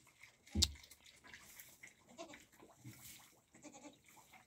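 A single sharp thump about half a second in, then faint calls and shuffling of farm animals in a straw-bedded pen.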